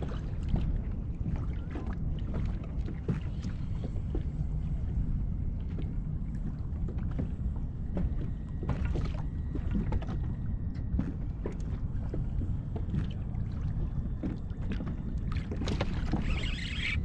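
Open-water ambience on a fishing kayak: a steady low rumble of wind on the microphone and water against the hull, with scattered light knocks and ticks from the boat being handled. A brief splashy hiss comes near the end.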